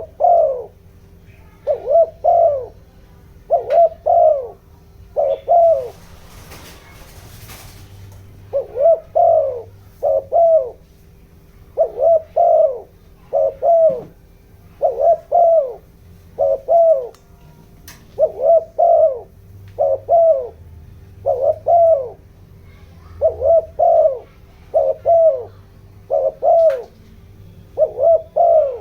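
Male spotted dove cooing in quick, repeated short coos, mostly in pairs about once a second, with one pause of about two seconds. This is the rapid 'thúc gù' call used as a decoy to provoke wild doves. A brief hiss fills the pause, and a faint steady hum runs underneath.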